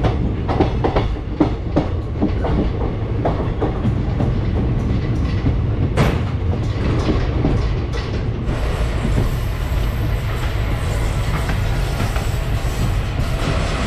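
Passenger express train running on the rails, heard from on board: its wheels clatter over rail joints and points in a run of quick, uneven clicks, with one sharp clack about six seconds in. After that it settles into a steadier, brighter rolling noise.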